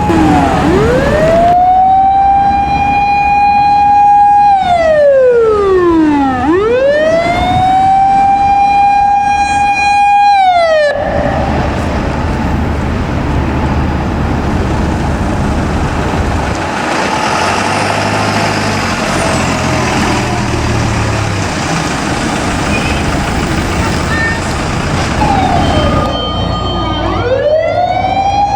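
Fire engine sirens wailing slowly: the pitch rises and holds high, then falls, twice, and stops abruptly about 11 seconds in. Truck engine and road noise follow, then a siren starts another rise near the end.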